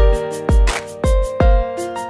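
Background music: pitched notes over a steady beat with a thump about every half second.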